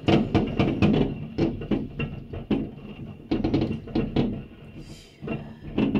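Fireworks going off outside, heard through a window: many sharp bangs and cracks in quick, irregular succession, densest in the first second.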